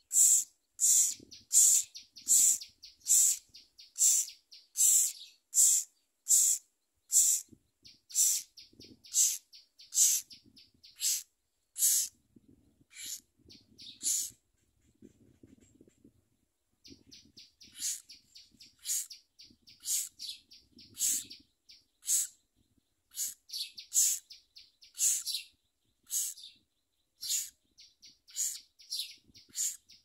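Nestling birds begging in the nest: short, raspy, high-pitched calls repeated about every half second. They fall silent for a couple of seconds midway, then start again.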